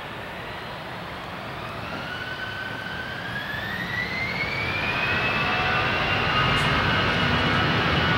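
Airbus A320's CFM56 turbofan engines spooling up for takeoff: a jet roar with a whine that climbs steadily in pitch for a few seconds and then holds, the whole sound growing louder.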